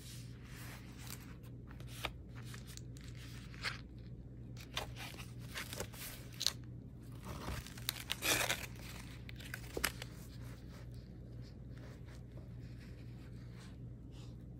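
Paper tags and collage pages of a handmade junk journal rustling and crinkling as they are handled and turned, in irregular rustles that are loudest about eight seconds in, over a steady low hum.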